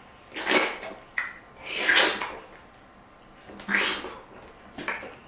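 Close-up eating noises of a person eating dragon fruit: four short, noisy mouth sounds spaced a second or more apart.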